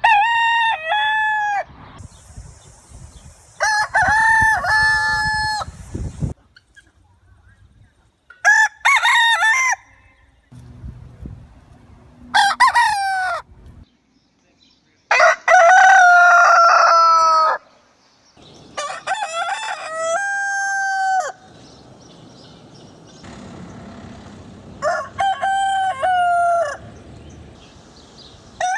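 Roosters crowing: a string of about seven separate crows, each one to two and a half seconds long with short gaps between them, from different birds with different pitches and backgrounds.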